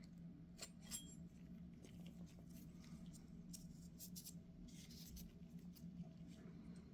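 Faint scattered clicks and light taps of small carburetor parts and hand tools being handled during a teardown, a few near the start and a cluster in the middle, over a steady low electrical hum.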